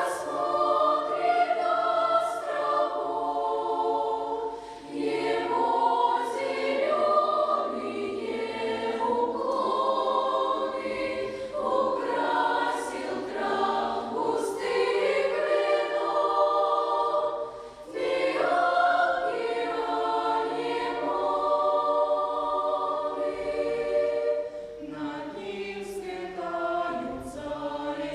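A choir singing a song in phrases of several seconds with held notes, with short breaths between phrases and sibilant consonants standing out.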